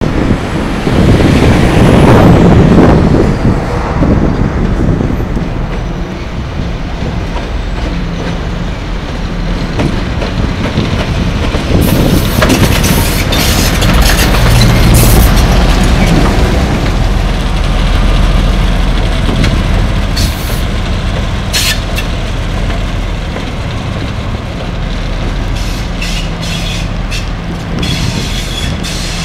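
M62 diesel-electric locomotive's two-stroke V12 engine running with a steady low throb as the locomotive rolls slowly through the yard. Short high-pitched hisses and squeals come and go in the second half.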